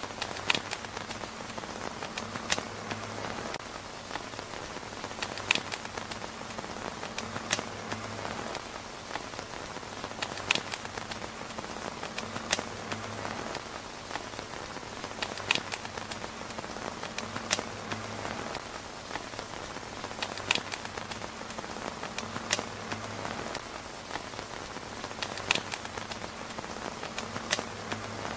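Steady rain falling on a tent's fabric roof, with sharp clicks standing out every two to three seconds.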